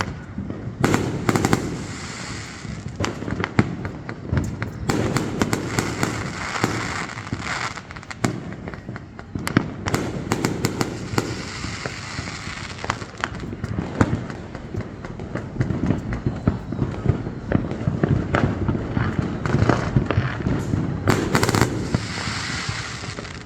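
A dense, irregular barrage of sharp cracks and bangs, many in quick succession, over a continuous low rumble.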